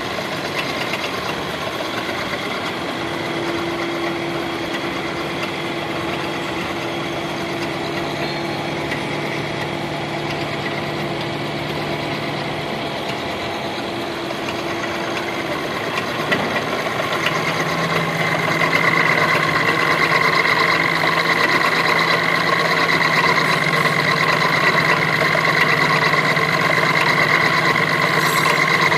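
Gear-cutting machine tool running steadily, a hum with several steady whining tones that shift pitch a little over halfway through and grow louder from then on.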